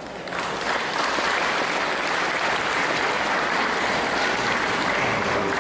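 Audience applauding steadily, starting just after a speech ends with thanks.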